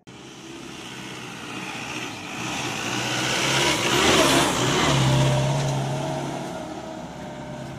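Pickup truck loaded with bricks driving past close by on a dirt track and pulling away. Its engine and tyre noise grow to a peak about four to five seconds in, then fade.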